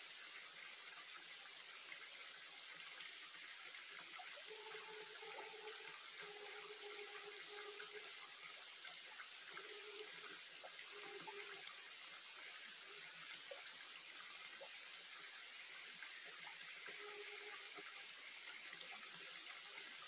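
Mountain stream flowing, an even rush of water, under a steady high-pitched insect drone. A low animal call with a steady tone sounds several times, off and on.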